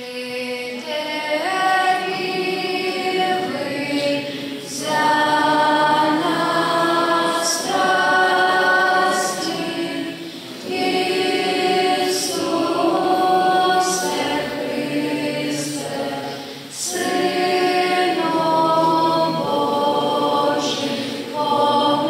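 Choir singing in long held phrases, with a short break for breath about every six seconds.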